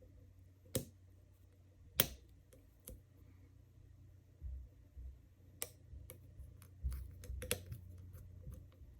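Irregular sharp clicks and taps of a short hook lock pick working the pin tumblers of an all-brass Wilson Bohannan padlock under light tension from a top-of-keyway wrench, with a few dull bumps. A quick run of several clicks comes near the end. The core has already rotated slightly, so pins are being set.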